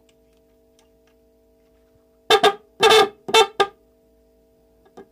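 Repaired 12-volt electric pressure horn being bench-tested off a battery. It sounds four short, loud blasts in quick succession about two seconds in, each one sounding as the wire is touched to the battery terminal.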